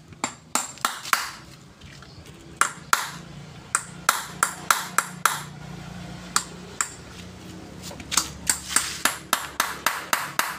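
Hand wrench clicking and clinking against the bolts of a manual gearbox case as it is unbolted: sharp metallic clicks, some single and some in quick runs of several a second. A faint low hum runs underneath in the middle.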